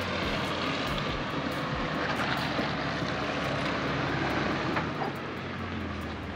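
Toyota Land Cruiser SUV's engine running with a steady low drone as it crawls slowly past at close range on a dirt trail.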